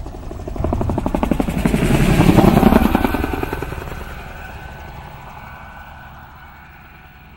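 Helicopter rotor chopping in a fast, even beat: it swells over the first couple of seconds, is loudest around two to three seconds in, then fades away as the helicopter flies off.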